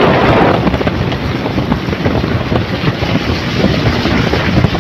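Steady rush of wind buffeting the microphone, over the road noise of a moving car.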